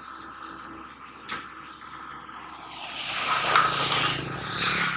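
Engine running, faint at first, then growing louder about three seconds in under a hissing rush.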